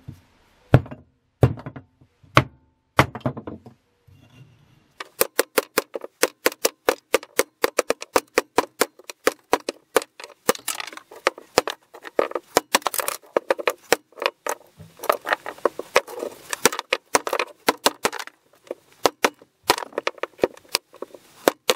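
Small forest axe with a new wooden handle chopping and splitting softwood blocks into sticks. A few separate strikes come first, then rapid chopping from about five seconds in.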